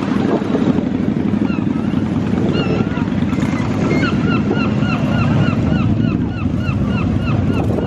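Motorcycle engines running as bikes ride slowly past, a steady low rumble. From about two and a half seconds in, a bird calls in a fast run of short repeated notes, about three a second, for several seconds.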